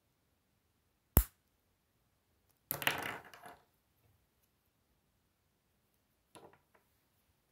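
Plastic K'Nex rods and connectors being snapped together by hand: one sharp click about a second in, then a short clatter of plastic pieces, and a few soft clicks near the end.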